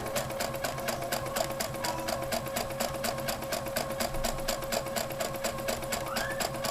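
Electric sewing machine stitching a seam at a steady speed: an even, rapid run of needle clicks over a constant motor hum.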